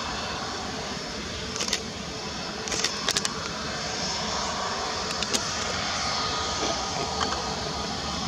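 Airbus A320neo's CFM LEAP-1A turbofans running at taxi idle as the jet taxis past, a steady hum with faint whining tones. A few sharp clicks come through, around two, three and five seconds in.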